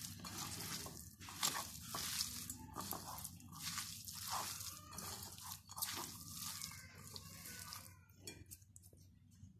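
Hand mixing raw chicken pieces with sliced onion, chillies and fresh coriander leaves in a wet spice marinade in a glass bowl: irregular wet rustling and squishing strokes, stopping about eight seconds in.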